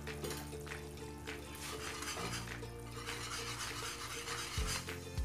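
Spoon stirring flour into a thin milk sauce in a nonstick frying pan, soft scraping and sloshing, under background music with held notes. A few low knocks begin near the end.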